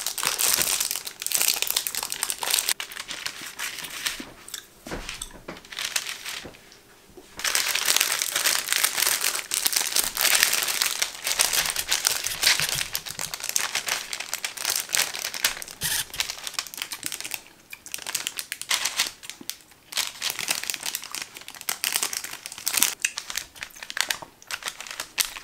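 Clear plastic wrapping of mini pizzas crinkling and rustling as it is torn open and handled, in dense bouts with a short lull about six seconds in and sparser rustles near the end.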